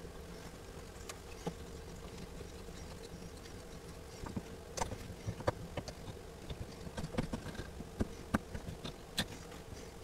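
Knife whittling a small piece of wood: light scraping cuts and sharp clicks of the blade biting the wood, starting about four seconds in, over a faint steady hum.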